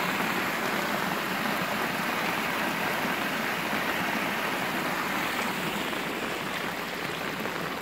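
Heavy rain falling steadily, mixed with muddy stormwater runoff rushing along a roadside drain channel.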